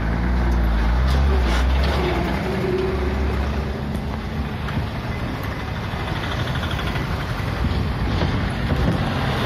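Road traffic heard from inside a moving vehicle: its engine running with steady low rumble and road noise, while trucks and motorcycles pass close by.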